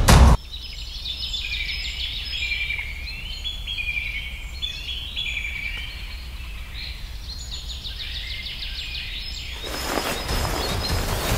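Music cuts off at the very start, leaving birds chirping and singing in many short, high, sliding calls over a steady low rumble. Near the end a rush of noise swells up.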